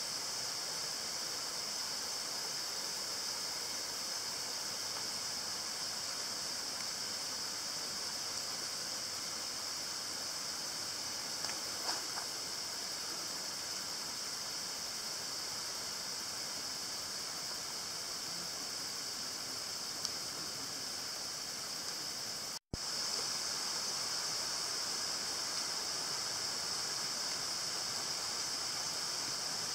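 Steady outdoor night ambience: an even, high-pitched hiss, briefly cut off about two-thirds of the way through.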